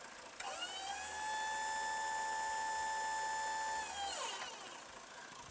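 Wood-Mizer sawmill's hydraulic pump whining: it spins up about half a second in, holds a steady high pitch, and winds down near the end.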